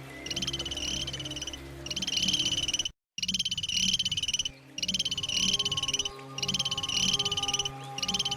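An animal calling in rapid, high-pitched pulsed trills, each about a second long, repeated with short gaps. The sound cuts out completely for a moment about three seconds in. A faint low steady hum runs underneath.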